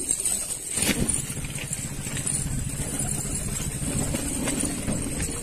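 A motor running steadily with a low rumble, and a single knock about a second in.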